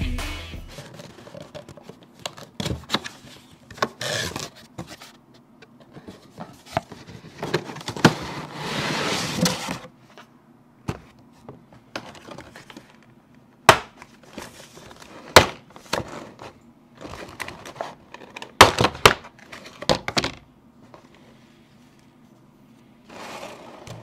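Unboxing handling sounds: a cardboard toy box and its plastic packaging being opened and rustled. Irregular sharp clicks, taps and knocks are mixed with short crinkling rustles, and a longer rustle comes about eight to ten seconds in.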